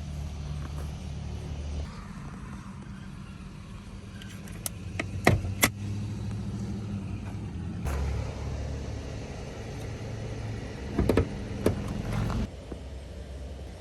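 A car engine running steadily with a low hum that shifts in pitch twice and cuts off suddenly about twelve seconds in. Several sharp knocks or clicks stand out over it, a cluster about five seconds in and another near eleven seconds.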